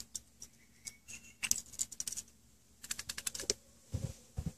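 Light clicks and taps of a Keihin CV carburetor's metal body and linkage being handled and turned over in the hands, coming in quick runs of ticks, with two dull thumps near the end.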